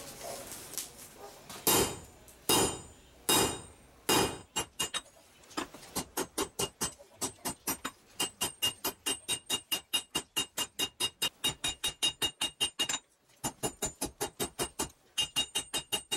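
Hand hammer forging a red-hot steel bar on an anvil. First come four heavy blows about a second apart, then a fast run of lighter blows at about four a second, each with a ringing metallic tone. There is a brief pause near the end before the quick blows resume.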